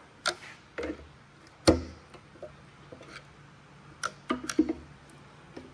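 A pry bar levering between a Ford 3.5L EcoBoost's timing cover and a cam phaser, giving a series of sharp metallic clicks and taps. The loudest comes a little under two seconds in, and a quick cluster follows about four seconds in, as the sealant bond on the cover is broken.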